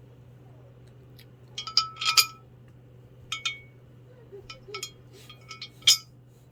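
Steel carriage bolts clinking against the metal rack pieces as they are fitted through the bolt holes. There is a cluster of sharp clinks about two seconds in, a couple more a second later, then a run of lighter ones ending in one sharp clink near the end, each with a brief metallic ring.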